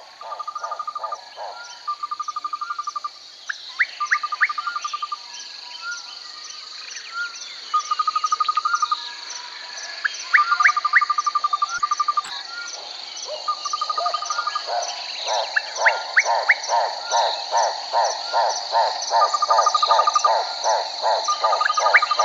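Chorus of frogs calling over a steady high insect drone. Short rapid trills repeat every second or two, with brief rising chirps, and from about halfway through a run of regular lower croaks comes about twice a second.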